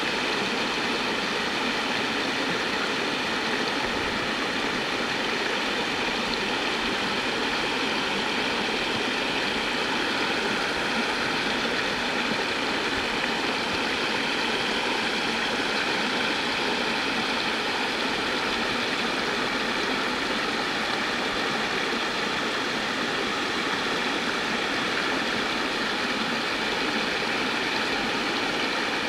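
Creek water rushing steadily over smooth bedrock and through small white-water rapids.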